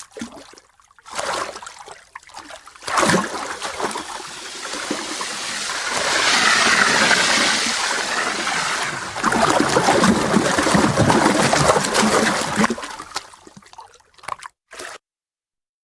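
Water splashing, sloshing and gurgling in irregular surges, loudest in the middle, then cutting off abruptly near the end.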